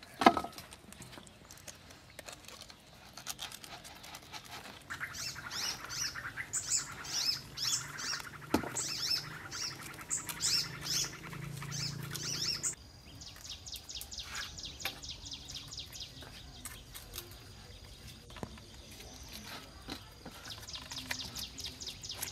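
Small birds chirping in quick runs of high calls; about halfway the sound changes abruptly to an even, rapidly repeated chirping. Faint clicks and rustles of hand work in a bowl come underneath.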